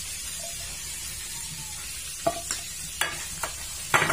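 Fish frying in a pan of hot oil, a steady sizzle, with a few sharp knocks from about two seconds in as peeled potatoes are put into a stainless steel pot, the loudest near the end.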